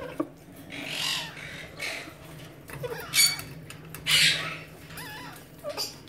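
Alexandrine parakeet sounds from the nest box: several short harsh bursts, the loudest about three and four seconds in, with faint wavering notes between them.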